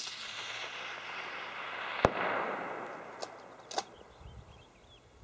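A rifle shot with a long rolling echo that fades away over several seconds. A second sharp crack comes about two seconds in, with a couple of fainter cracks near the end.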